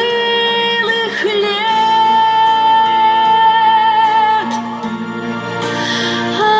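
Music with a singing voice holding a long note through the middle.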